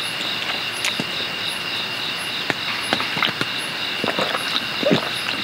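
Steady rain with crickets chirping in an even, pulsing high trill, scattered light taps, and one brief low sound near the end.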